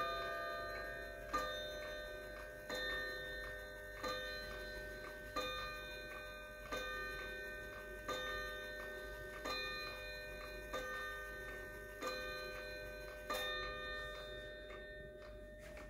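Kieninger German wall clock striking the hour on its chime rods: slow, evenly spaced blows about one every 1.3 seconds, each ringing on and fading. After the last blow, near the end, the movement's tick is heard.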